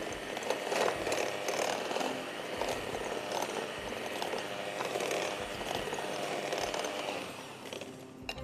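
Electric hand mixer running, its beaters churning through a dry, crumbly mix of butter, brown sugar and flour in a glass bowl. It dies down near the end.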